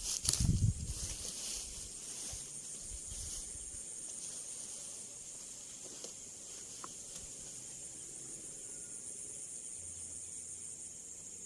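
A steady, high-pitched chorus of insects, with a few low thumps and rustles of handling in the first second or so.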